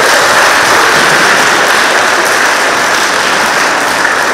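Audience applauding: many hands clapping together in a dense, steady stream.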